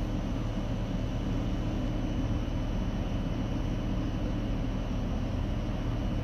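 NS VIRM double-deck electric multiple unit humming steadily at the platform, a low, unchanging hum from its electrical equipment as it stands ready to depart.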